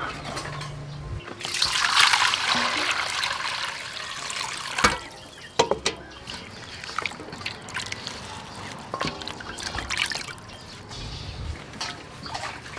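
Water poured into a steel basin for about three seconds, then hands washing raw meat in the water: splashing and sloshing, with a few sharp knocks against the metal basin.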